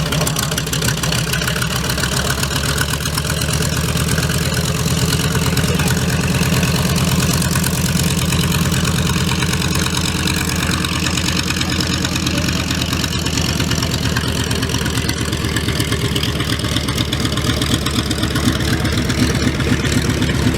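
Piston aircraft engine running steadily with a deep, even rumble of rapid firing pulses, holding one speed throughout.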